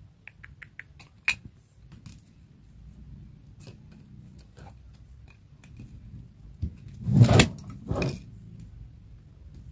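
A lightweight metal phone tripod knocked over by a cat, clattering onto the floor about seven seconds in with a second, smaller knock a moment later. Light ticks and taps in the first second or so come from the cat nosing at the tripod's legs and clamp.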